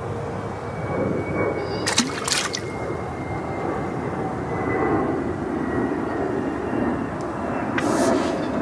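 A steady low rumble of outdoor background noise, with a pair of sharp clicks about two seconds in and another near the end, as an angler handles his pole-fishing tackle.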